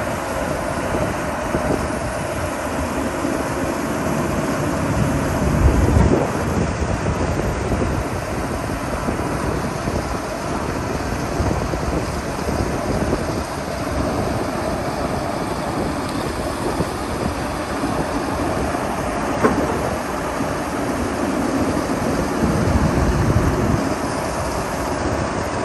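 Kobelco SK380SR tracked excavator running, a steady mechanical rumble with louder surges about six seconds in and again near the end.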